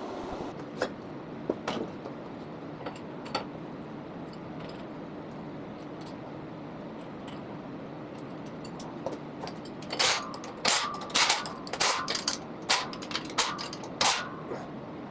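Sharp metallic clinks and clangs of steel gym-rack parts being handled and fitted during assembly: a few scattered ones at first, then a quick run of about a dozen in the last third.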